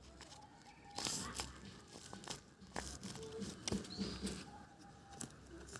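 Hands crinkling and tearing at a homemade squishy, in a series of short, irregular crackles.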